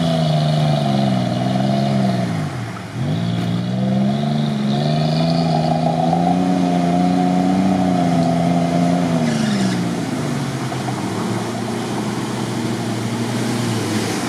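Off-road 4x4 SUV engines revving under load as they push through deep mud and water. The engine note dips about three seconds in, climbs again and holds, then drops away near ten seconds.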